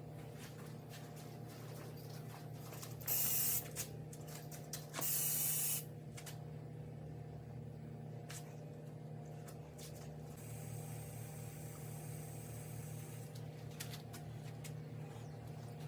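Two short hissing sprays, the first about three seconds in and the second, longer one a second later, over a steady low hum.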